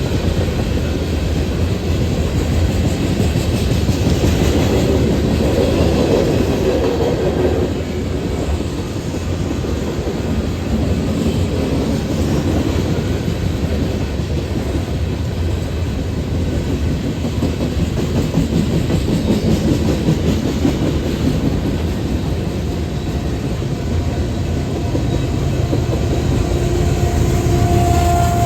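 BNSF coal train's cars rolling past, a steady loud rumble with wheels clacking over the rail joints.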